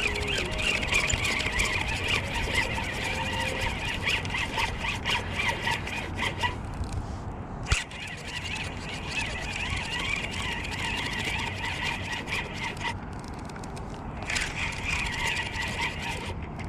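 Spinning reel being cranked to reel in a hooked fish, its gears whirring with rapid clicks. The cranking breaks off briefly twice, around the middle and again about three quarters of the way through, with a single sharp knock just before the middle.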